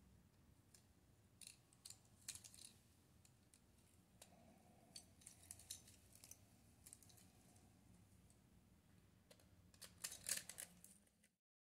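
Faint, scattered small clicks and light scraping of plastic and metal parts as a Kodak compact digital camera's circuit board and lens assembly are handled and worked with a small screwdriver. A quick run of clicks just before the end is the loudest, then the sound cuts off abruptly.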